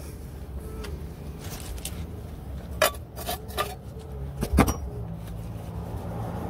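A wrench and gearbox plug being handled, giving a handful of sharp metal clinks from about a second and a half in until near the five-second mark, the loudest two near the middle, over a low steady hum.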